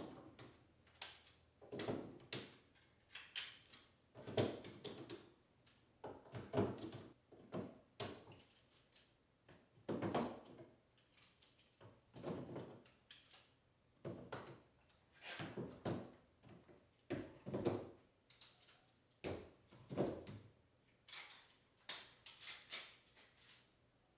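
Bar clamps knocking and clattering against a wooden wall rack as they are hung on it one after another, a knock or short clatter every second or two.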